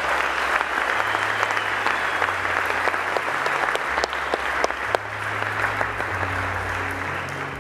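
Audience applauding steadily, a dense wash of many hands clapping with individual claps standing out.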